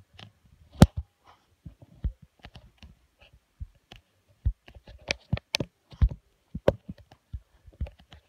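Handling noise: irregular clicks and knocks close to the microphone as the recording device is moved about and small plastic toys are set down on a tabletop, the sharpest knock about a second in.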